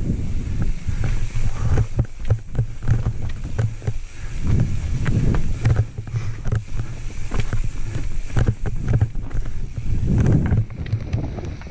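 Santa Cruz Nomad full-suspension mountain bike descending rough forest singletrack: a continuous low rumble of tyres over roots and rocks, with wind buffeting the microphone and many sharp rattling clicks from the bike. The rumble eases near the end.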